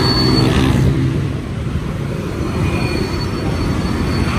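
City street traffic: a vehicle engine running close by in the first second, over a steady rumble of passing traffic.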